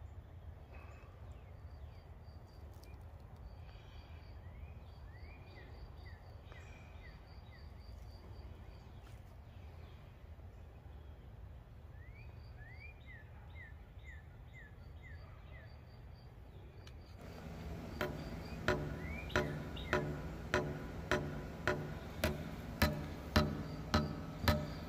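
Quiet garden ambience with birds chirping in runs of short falling notes over a faint, high, rapidly repeated insect-like call. About two-thirds of the way through, background music with a steady plucked beat comes in and stays.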